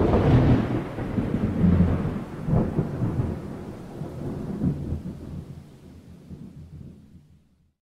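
A thunderclap: a sudden crack that rolls on as a low rumble with a few swells, fading away over about seven seconds.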